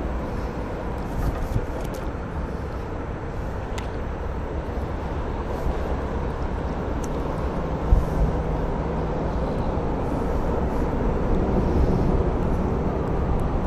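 Steady low rumble of road traffic on the highway bridge overhead, with a single thump about eight seconds in.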